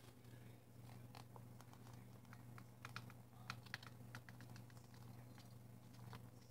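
Faint, quick light clicks and taps, clustered about halfway through, as cooked ground beef is scraped off a paper plate into a cat bowl of dry kibble. A low steady hum runs underneath.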